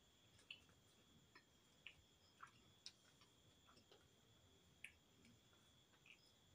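Faint eating sounds: a scattering of small, irregular clicks and ticks as roti is torn by hand and eaten, over a faint steady high whine.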